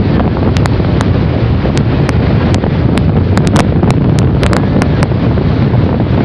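Heavy wind buffeting the microphone of a camera carried on a moving vehicle, a steady low rush with scattered sharp clicks throughout.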